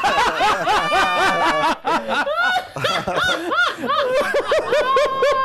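Men laughing hard together: several voices overlap at first, then one voice runs on in quick, high-pitched laugh pulses.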